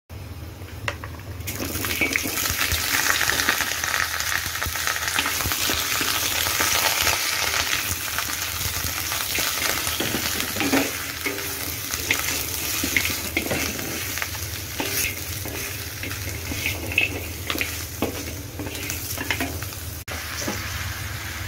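Pork trotter pieces sizzling in hot oil in a wok, with scrapes and knocks of a wooden spatula stirring them. The sizzle swells about a second and a half in and then holds steady, over a low hum.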